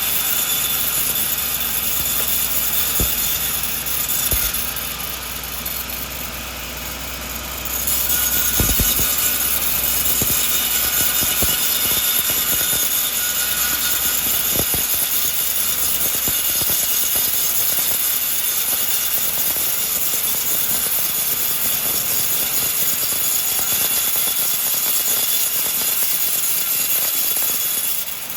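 Sawmill saw cutting through a coconut log: a steady, loud, high-pitched noise with occasional knocks. It eases off for a few seconds near the start, then runs steadily again.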